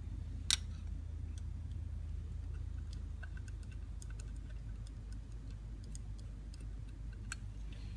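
Small screws with washers being fitted and turned into a Holley 94 carburetor's top with a screwdriver: scattered faint metal clicks and ticks, with one sharper click about half a second in and another near the end, over a low steady hum.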